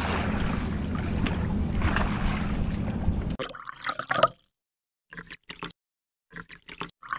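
Steady low rumble and water noise from a boat on open water. It cuts off suddenly about three and a half seconds in, followed by a few short splashy bursts separated by dead silence.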